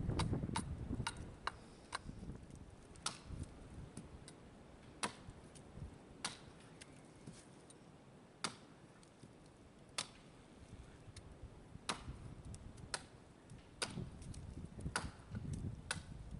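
Axe strikes chopping into a green red oak log to shape a wooden maul. The sharp, separate blows come in quick succession at first, then slow to about one every second or two.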